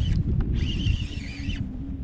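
Strong wind buffeting the microphone, a steady low rumble. About half a second in, a wavering high-pitched whine comes in and lasts about a second.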